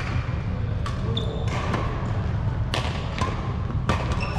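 Badminton rally: sharp racket strikes on a shuttlecock about a second or two apart, with sneakers squeaking briefly on the wooden court floor, over a steady low hum in a large hall.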